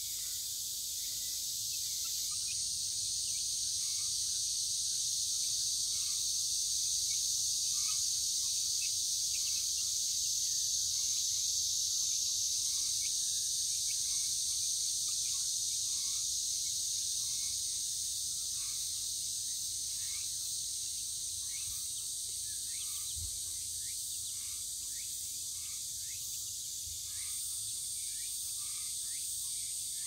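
A steady, high-pitched chorus of cicadas, running without a break, with many short chirps scattered through it.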